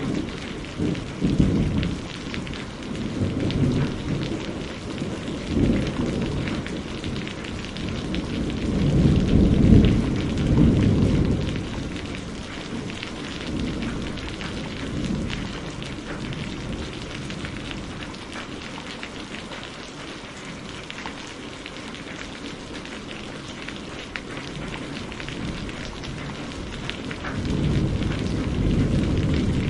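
Steady rain falling, with rolling thunder. Low rumbles come in the first few seconds, the loudest peal about ten seconds in, and another rumble builds near the end.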